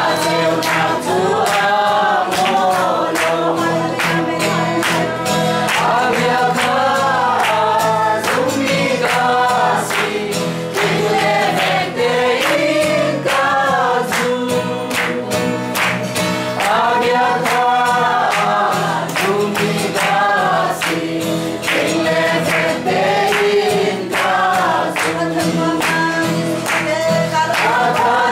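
A mixed group of men's and women's voices singing together in unison, with hand clapping keeping the beat.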